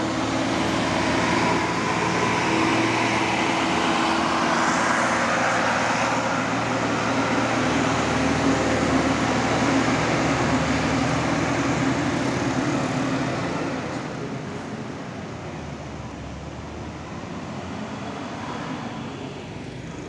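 Tour coach's diesel engine pulling up a steep hill as it passes close by, a steady engine note over tyre and road noise, with a following minibus. The sound fades away about two-thirds of the way through as the vehicles move off.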